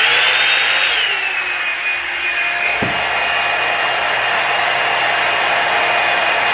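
Revlon One-Step hot-air brush dryer running: its fan motor gives a high whine that drops slightly in pitch about a second in and then holds steady over a loud rush of blowing air.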